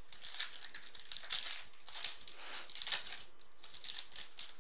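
Foil wrapper of a 2015 Topps Platinum football card pack being torn open and peeled off by hand, crinkling in a string of short, irregular crackles.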